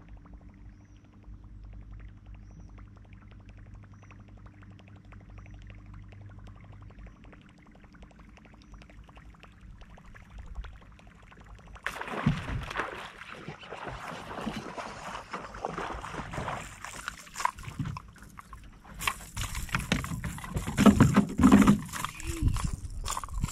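A steady low hum, likely the bow-mounted electric trolling motor, fades out in the first half. About twelve seconds in, a hooked bass starts thrashing and splashing at the surface beside the boat, and the splashing gets louder near the end as the fish is brought in.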